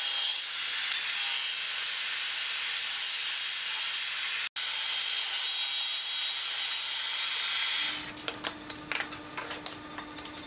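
Table saw running as it cuts along a wooden board: a steady high whine and hiss, with a split-second dropout about four and a half seconds in. About eight seconds in it gives way to a few light knocks of wooden pieces set down on a workbench.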